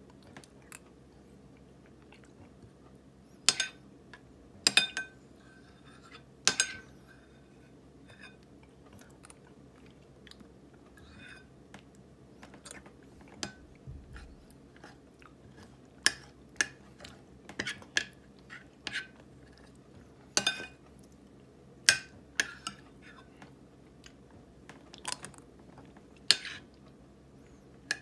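Deliberate, close-up wet lip-smacking and chewing of soft frozen ripe persimmon (hongsi): a string of sharp, irregular smacks over a faint steady hum.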